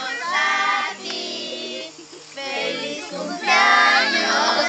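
A group of children and women singing a birthday song together, in long held notes, with a short break between lines and louder in the second half.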